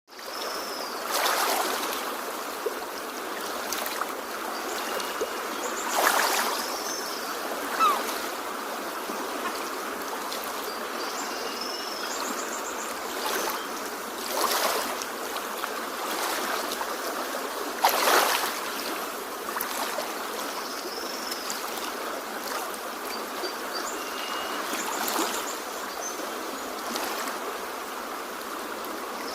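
Ocean waves washing in as a steady hiss, swelling louder every few seconds.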